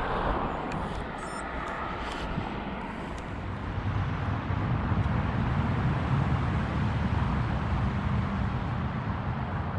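Steady outdoor road-traffic noise, a continuous low rumble that grows stronger about four seconds in.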